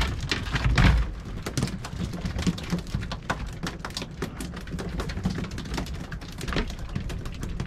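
Irregular patter and splashing of water against a small open boat, with scattered knocks and a low rumble of wind on the microphone, louder for a moment about a second in.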